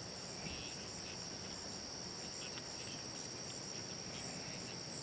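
Insect chorus: a steady, high-pitched trill that does not let up.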